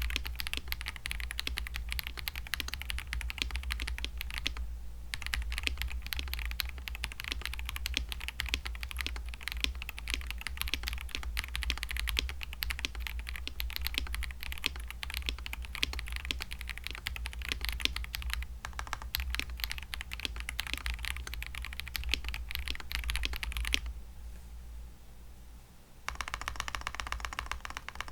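Fast typing on a mechanical keyboard with stock, unlubricated Akko CS linear/tactile switches: a dense run of key clacks with brief pauses, then a short, brighter burst of typing near the end.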